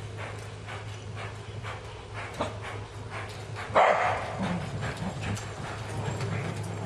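A horse's hoofbeats striking the arena ground in a steady rhythm, about two to three a second, with a sudden loud burst of noise about four seconds in. A steady low hum runs underneath.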